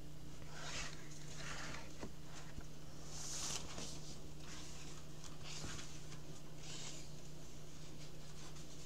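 Faint paper rustling from a book being handled: about five short, soft swishes, over a steady low hum.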